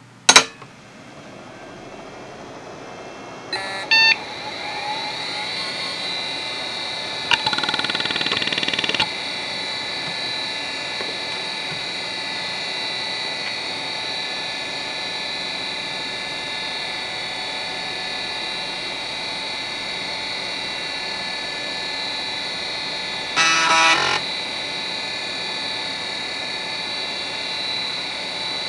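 Conner CFS425A 3.5-inch IDE hard drive powering up from cold. A sharp click comes as power comes on, then the 3600 rpm spindle motor spins up with a rising whine over the first few seconds and settles into a steady whine. Short bursts of louder noise come about 4 s, 7–9 s and 23–24 s in.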